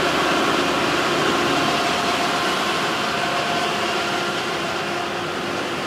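Rice-milling machinery running: a loud, steady mechanical noise with a few steady hum tones through it.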